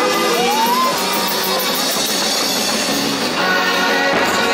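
Music with guitar, held notes and a sliding note that rises about half a second in; no distinct firework bangs stand out.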